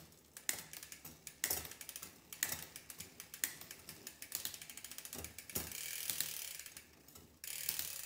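SRAM Eagle 12-speed chain running over the cassette and through the rear derailleur of a bike turned by hand in a repair stand, with rapid ticking and a sharp louder click about once a second as it changes gear. It shifts cleanly now that the B-gap is adjusted and the bent derailleur hanger has been straightened.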